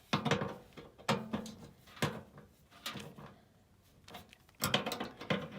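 Handling noise from work on a furnace: about six separate sharp knocks and clicks, a second or so apart, with a quieter stretch after the middle.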